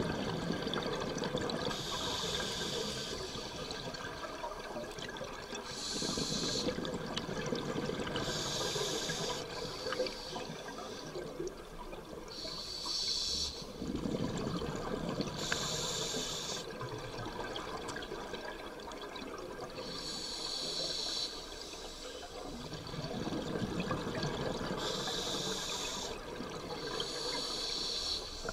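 Scuba diver breathing through a regulator, heard from inside the water: a rushing inhalation alternates with a short hiss of exhaled bubbles, about one breath every three to four seconds.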